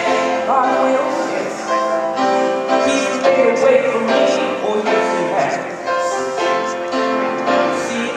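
Music playing: a melody of long held notes over a steady accompaniment.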